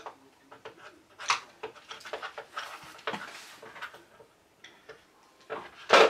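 Toys and packaging being handled and moved about on a cluttered table: scattered clicks and rustles, with a louder clatter near the end.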